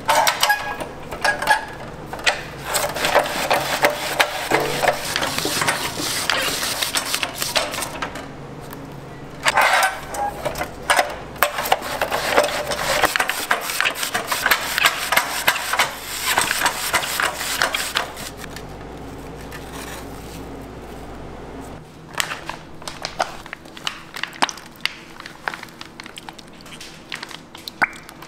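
Whole peeled onions being sliced on a stainless rotary slicer: dense, crisp crackling as the blade shears through the onion, in two long runs, over a steady low hum. About three quarters of the way through, the hum stops and the sound thins to scattered light clicks.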